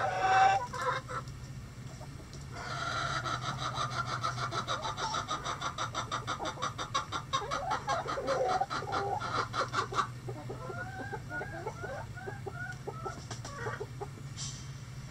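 Backyard bantam chickens calling: a loud call at the start, then a long run of quick repeated clucks for several seconds, then softer short chirping calls. A steady low hum runs underneath.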